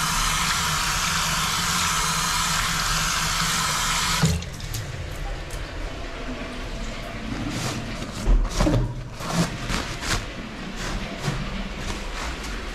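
Bathroom sink tap running over hands being washed, shut off abruptly about four seconds in. Quieter scattered rustles and knocks follow as paper towels are handled to dry the hands.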